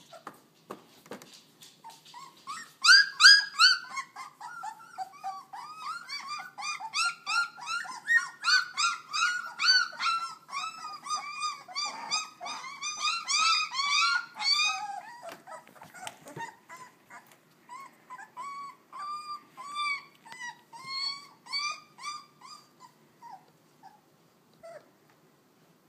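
Chinook puppies not yet three weeks old whining and yelping together, a busy chorus of short, high, arching cries at several pitches at once. The crying is loudest in the first half and thins out to scattered whines near the end.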